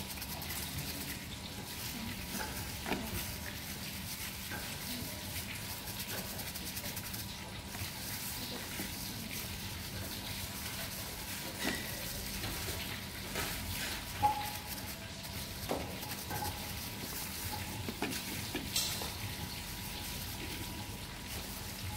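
Steady kitchen hiss with a faint hum, over which plastic-gloved hands stuffing tofu with shrimp filling make scattered soft clicks and rustles.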